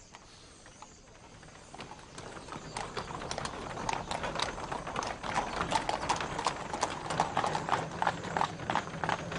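Horses' hooves clip-clopping on hard paved ground as a team pulls a chariot, faint at first and growing louder and closer from about two seconds in, with many overlapping hoof strikes.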